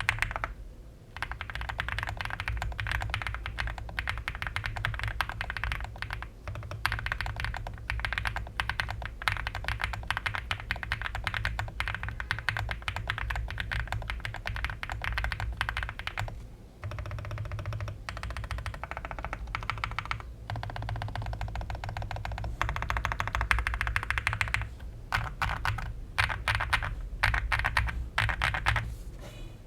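Typing on a custom mechanical keyboard with Krytox-lubed White Jade tactile switches, an FR4 plate in an aluminium case with full foam, and PBT keycaps. Fast, continuous key presses with a few brief pauses.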